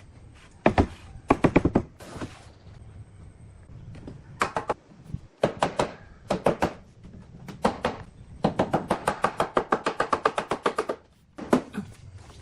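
Sharp, ringing knocks in quick clusters of two to four, then a fast run of about eight a second near the end, like repeated strikes on wood.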